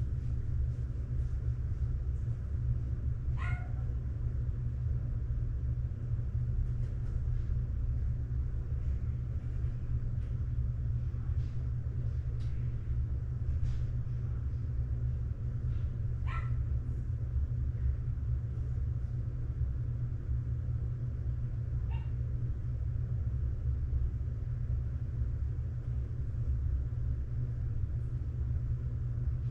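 A dog yelps three times, short pitched cries about three, sixteen and twenty-two seconds in, over a steady low rumble.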